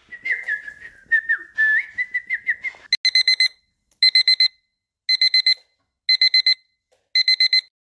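High warbling, chirping whistles for about three seconds. Then an alarm clock beeps in quick groups of about four beeps, one group each second.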